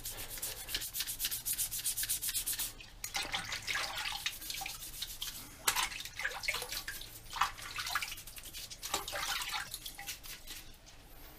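Toothbrush scrubbing a freshly manganese-phosphate parkerized steel part in a sink of rinse water. It starts with quick back-and-forth strokes, then goes on in slower, irregular strokes. The scrubbing takes the grey post-bath crust off to leave the final black finish.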